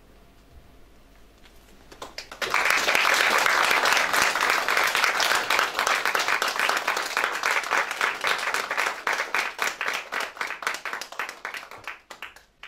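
Small audience applauding: faint at first, then clapping breaks out about two seconds in, stays full for several seconds, thins to scattered claps and stops near the end.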